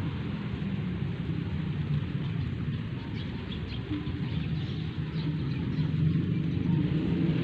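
A steady low engine hum runs throughout, with a few faint, short high chirps around the middle.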